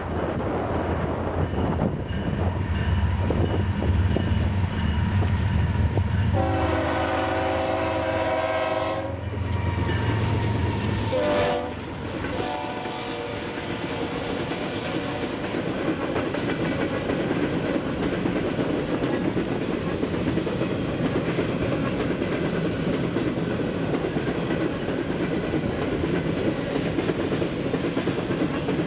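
Freight train passing, led by GE diesel locomotives. The locomotives' engines rumble as they approach, and their horn sounds from about six seconds in, its pitch dropping as they go by around eleven seconds. After that, the empty grain cars roll past with a steady clatter of wheels on rail.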